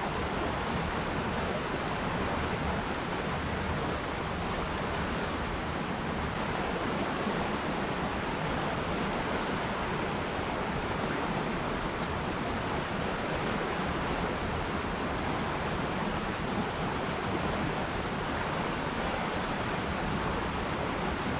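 River water rushing and splashing in a steady, unbroken hiss.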